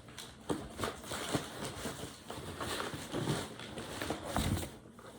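A cardboard shipping box being opened by hand: irregular rustling and scraping with scattered knocks and clicks.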